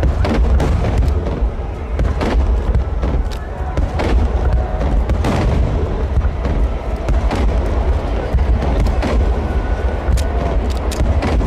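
Aerial fireworks shells bursting one after another, sharp bangs and crackles over a constant heavy rumble, with music playing underneath.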